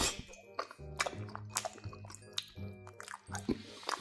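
Close-miked wet chewing and squishing of pasta in thick cheese sauce, starting with a loud wet bite off a fork, over background music.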